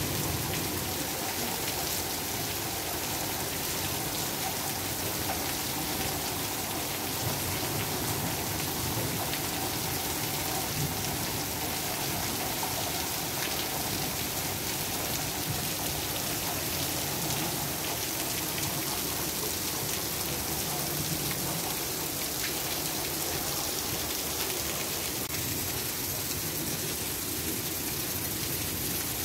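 Heavy rain pouring steadily onto wet pavement and parked cars, an even, unbroken hiss.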